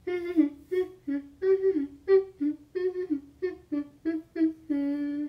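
A person humming a bouncy tune of short notes that step between a few pitches, ending on one long held note near the end.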